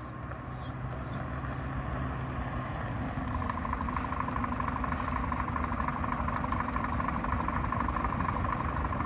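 Scania S500 truck's diesel engine running at low speed as the tractor unit pulls slowly forward, growing steadily louder as it approaches. A steady whine joins in about three seconds in.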